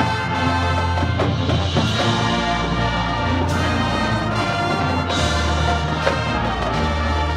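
High school marching band playing its field show: brass chords over low bass notes that shift every second or two, with percussion and timpani.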